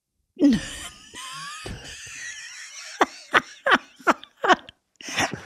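A woman laughing hard: a high, wavering squeal first, then a run of short breathy laughs, about two or three a second.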